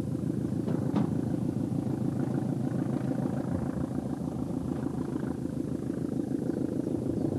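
Passenger multiple-unit train running along the line, a steady rumble, with a single short click about a second in.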